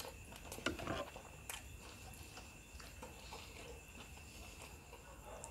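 Bare fingers handling food: rice grains dropped and pieces of saucy devilled chicken scooped from a ceramic bowl. A few light clicks and taps come about half a second to a second and a half in, with quieter rustling after.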